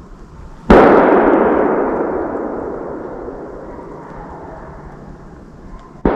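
Two gunshots about five seconds apart, the first the louder, each followed by a long echo rolling away through the woods, fired by hunters at deer driven out by dogs.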